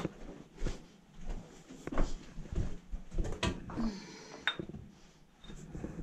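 Irregular scuffs, knocks and scrapes of a person clambering over rock, with clothing rustling and the camera being handled, in a narrow rock tunnel.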